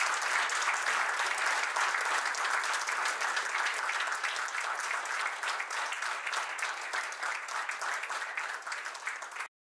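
Audience applauding steadily, many hands clapping together; it cuts off abruptly near the end.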